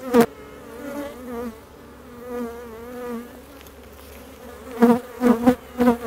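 Honey bees buzzing around an open hive: a wavering hum, with louder surges at the very start and again near the end as bees pass close by.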